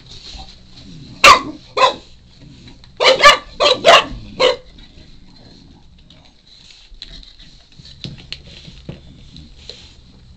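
Shar-pei puppy barking in short, sharp yaps: two single barks, then a quick run of five, demanding a chew treat.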